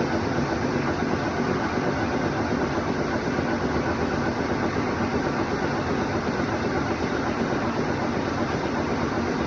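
CNC machine running steadily through a cut, a constant even hum and whir with no change in pitch or level.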